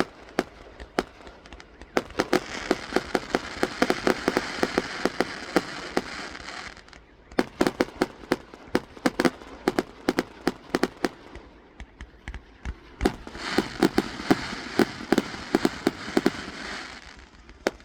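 Fireworks going off: a rapid, irregular run of sharp pops and bangs, with two longer spells of dense crackling, one starting about two seconds in and another near the end.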